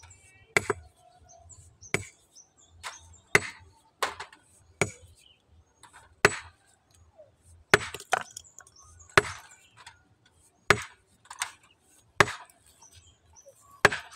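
Hammer blows on a large stone boulder, about a dozen sharp strikes at an uneven pace of roughly one a second, some in quick pairs, as the rock is broken up to split it.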